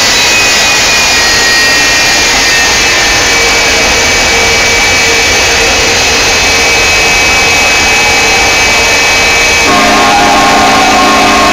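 Jet engines of a jet-powered semi truck running hard while it stands with its afterburners flaming: a loud, steady rush of noise with a high turbine whine. A steady pitched tone joins about ten seconds in.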